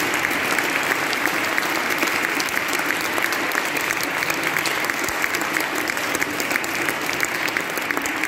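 Audience applauding steadily: many people clapping at once in a reverberant church.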